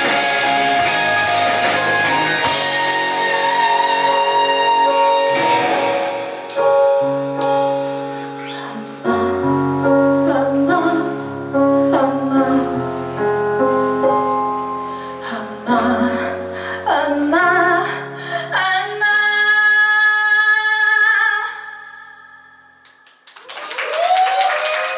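Live band with a female singer playing the closing bars of a song with held chords and keyboard; the music dies away a little after 22 seconds in, and audience applause breaks out near the end.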